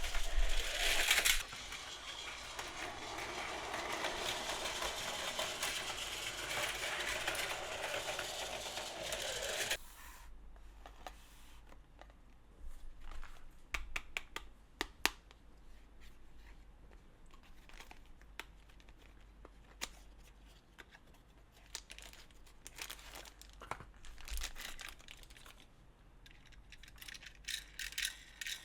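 A battery-powered Plarail toy train running on plastic track, a steady whirring rattle that cuts off abruptly about ten seconds in. After that, scattered light clicks and taps.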